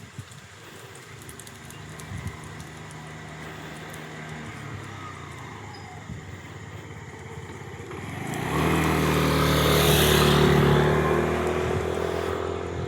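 A motor vehicle's engine approaching and passing close by: a faint hum at first, growing suddenly loud partway through, then fading away.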